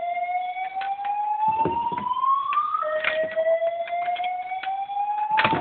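Fire alarm sounding a rising whoop tone: each sweep climbs slowly in pitch and restarts about every three and a half seconds, with a few sharp clicks among them and one louder knock near the end.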